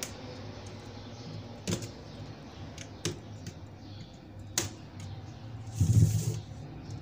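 Clips of an LCD panel's frame being pried loose with a small screwdriver: three sharp clicks about a second and a half apart, then a louder dull knock near the end as the frame is handled.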